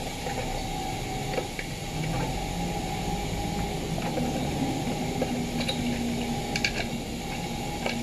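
Small clicks and light rattling of wires and a metal spring clip being handled while the round bimetal thermostat is pried off a drip coffee maker's heater plate, a few sharp clicks near the end, over a steady background hum.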